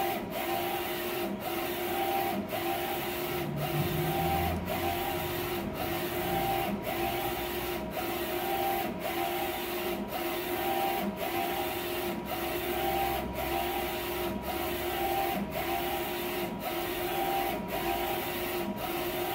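Wide-format inkjet printer printing: the print-head carriage whirs as it shuttles back and forth across the sheet, about one pass a second with a brief pause at each turn, over a steady hum.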